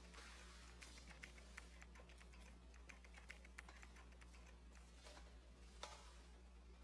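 Near silence with a low hum and about a dozen faint, irregular clicks and ticks, the sharpest one a little before the end.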